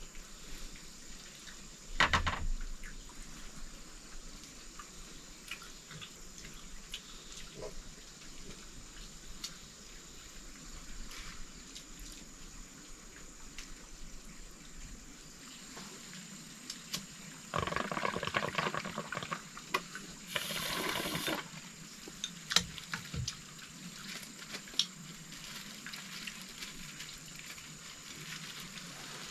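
Quiet sounds of a meal being eaten: scattered light clicks of chopsticks and dishes, a knock about two seconds in, and a few seconds of splashing liquid a little past the middle.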